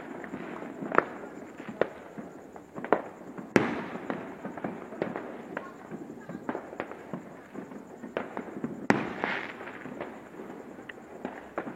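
New Year fireworks going off: a run of irregular bangs and crackles, with the loudest bangs about three and a half seconds in and again about nine seconds in.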